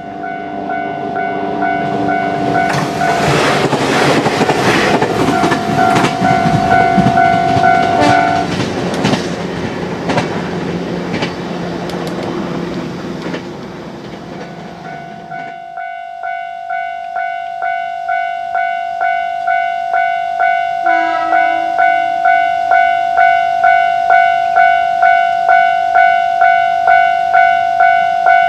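Japanese level-crossing warning bell ringing in a steady, rapidly repeating ding while a JR Kyushu train rushes past over the crossing, its wheels clattering over the rail joints. The train noise ends abruptly about fifteen seconds in, and the crossing bell keeps ringing alone.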